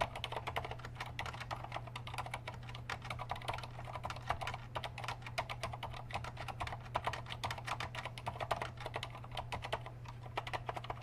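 Fast continuous typing on a mechanical keyboard with Cherry MX Black Silent linear switches: a rapid, irregular patter of soft key presses, thinning out near the end. A steady low hum lies underneath.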